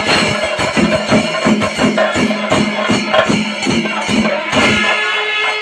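Pandi Melam, the Kerala temple percussion ensemble: chenda drums beaten with sticks in a fast, even beat of about three strokes a second, with elathalam cymbals jingling and kombu horns and kuzhal pipes sustaining steady tones over them.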